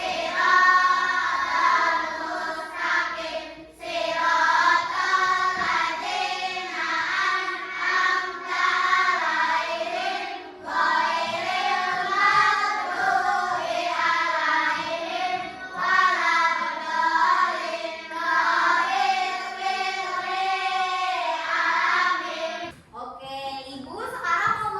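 A group of children singing a song together, phrase after phrase with brief pauses for breath; the singing stops shortly before the end.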